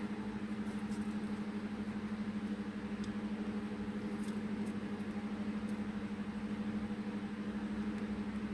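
A steady low hum with a slight even pulse, from a machine or appliance running in the room. A few faint paper taps and rustles come as pieces are pressed onto a card.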